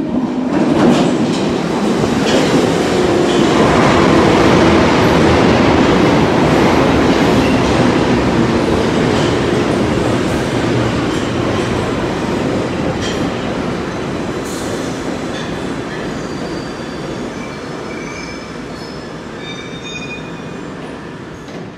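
A London Underground tube train pulling into the platform, loud as it passes and then fading steadily as it slows, with short high squeals as it comes toward a stop near the end.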